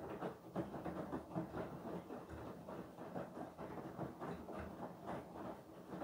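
Beko WTK104121W front-loading washing machine's drum tumbling wet laundry through water during the wash: uneven sloshing and splashing as the clothes lift and drop, several times a second.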